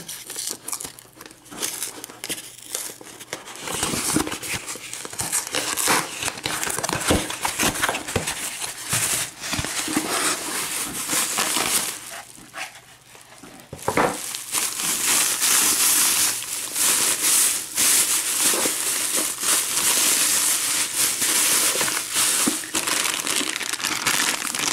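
A shipping box of locks being opened by hand, with packing material crinkling and crumpling throughout. There is a short lull just past the middle, ended by a single sharp knock.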